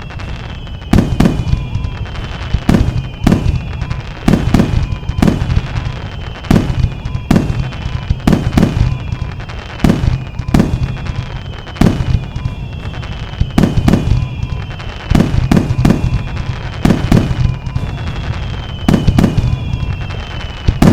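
Sound-effect recording of aerial fireworks shells bursting one after another, a loud boom every second or so. High whistling tones slide down in pitch between the bursts.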